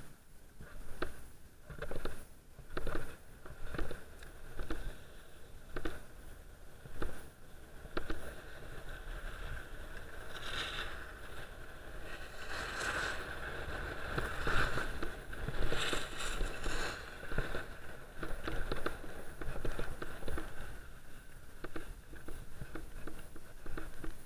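Skis sliding and scraping over groomed snow. In the first several seconds there is a swish about once a second, one per turn. After that the scraping runs on steadily, growing harsher for a while in the middle.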